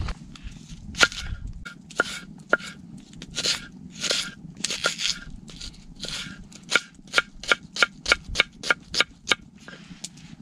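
Knife cutting vegetables on a wooden board: a few crisp crunching cuts, then a quick run of sharp knife strikes on the board, about three a second, as an onion is sliced.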